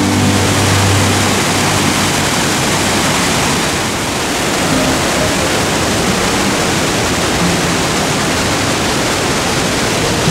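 Steady rushing roar of a waterfall or fast mountain stream. A low hum fades out about a second in.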